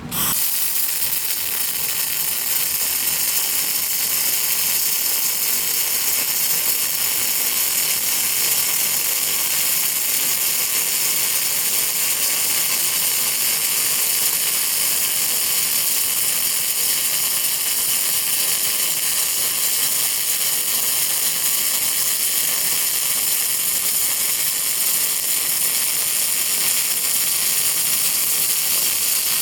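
CO2-shielded MIG welding arc from a Kingree Mig500N welder, crackling steadily and densely. The arc strikes suddenly at the start and keeps going without a break.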